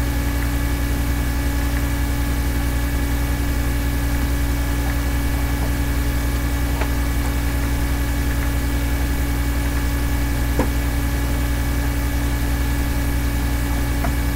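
Steady low hum with a few constant higher tones above it, unchanging, and a faint click now and then.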